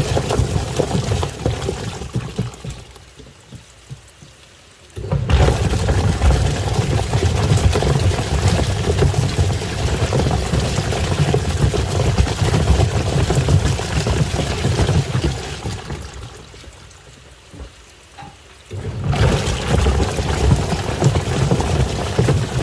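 Washing machine churning water with toys inside, the water sloshing against the tub. It runs, winds down over a couple of seconds into a brief pause, then starts up again suddenly, twice.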